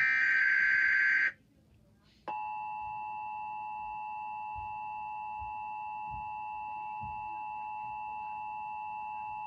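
An Emergency Alert System SAME digital header burst, a harsh buzzy screech, runs for about the first second and cuts off. About a second later the EAS attention signal starts: the steady two-tone 853 Hz and 960 Hz alert tone, held at an even level.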